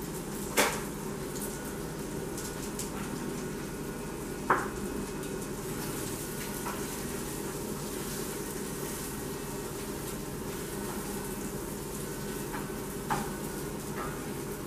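Food frying in a pan on a gas stove, a steady sizzle, with three sharp clatters of kitchenware: about half a second in, about four and a half seconds in, and near the end.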